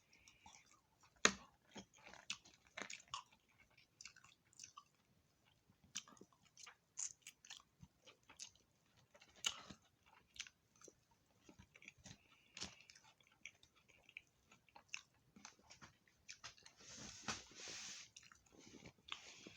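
A person chewing and biting food (chicken and seasoned fries), with many soft, irregular crunches and mouth clicks. A hiss lasting about a second comes near the end.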